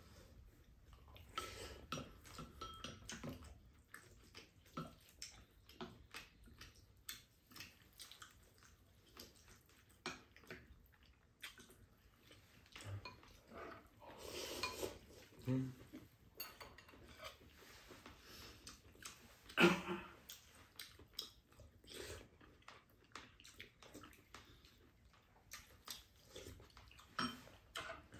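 Spoons and chopsticks tapping and scraping on ceramic rice bowls as two people eat, in scattered small clinks, with one sharper clink a little under twenty seconds in.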